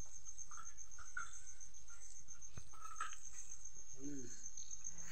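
An insect trilling steadily at a high pitch, in fine rapid pulses without a break.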